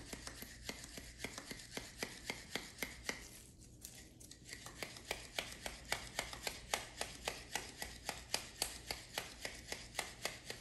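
Stiff new lineman's pliers worked open and closed over and over, their steel pivot gritty and grindy with valve grinding compound: short scraping clicks several times a second, pausing briefly about four seconds in. The abrasive paste is wearing a tight pivot joint in.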